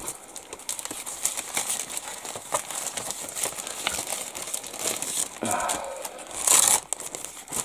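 Clear plastic bag crinkling as it is handled and paper decal sheets are slid in and out of it: irregular crackling throughout, with one louder burst near the end.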